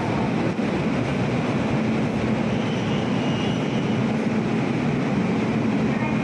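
WAP-7 electric locomotive running with a steady low hum and machinery noise as it creeps slowly up to the coach for coupling.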